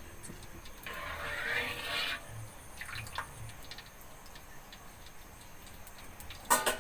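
Metal spatula stirring and scraping through cooking oil in an aluminium wok, with oil dripping off the lifted spatula: a rustling, hissing stretch about a second in, a few light clicks, then a sharp knock near the end.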